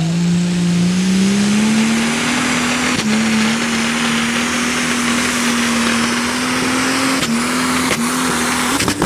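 Limited Superstock pulling tractor's engine at full power while dragging a weight-transfer sled, its pitch climbing slowly and steadily as it pulls. The pitch dips briefly twice near the end, over a dense hiss of tyres and exhaust.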